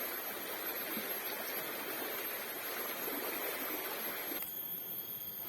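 Steady rush of flowing stream water, which cuts off abruptly about four and a half seconds in to a much quieter background.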